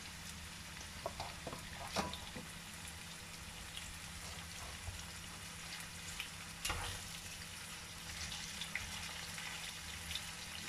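Turmeric-marinated chicken pieces sizzling steadily in hot oil in a nonstick pan, with a few light taps and scrapes of a metal spatula against the pan as the pieces are moved apart, the sharpest about two seconds in and again near seven seconds.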